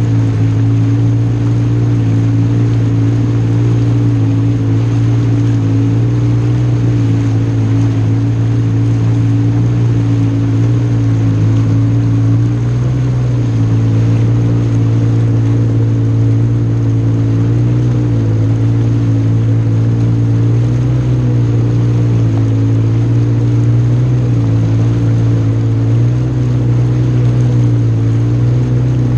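Jet ski engine running steadily at a constant speed, its hum dipping and rising slightly in pitch a few times as the throttle shifts.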